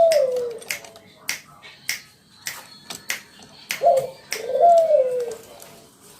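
Spotted dove (tekukur) cooing. The tail of one call phrase trails off at the start, then about four seconds in comes a full phrase: a short coo followed by a longer coo that falls in pitch. Sharp clicks sound here and there between the calls.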